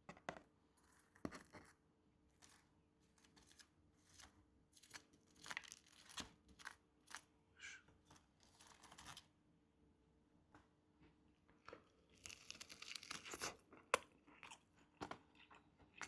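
Packaging being torn open and handled: scattered short tearing, crinkling and clicking sounds, with a longer stretch of rustling about twelve seconds in.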